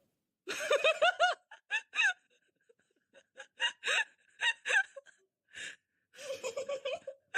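High-pitched laughter in quick repeated bursts, with short breaks between fits.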